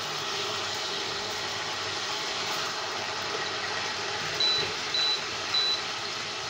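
A kitchen appliance she has just switched on runs with a steady rushing noise, very loud. Near the end come three short high electronic beeps, a little over half a second apart.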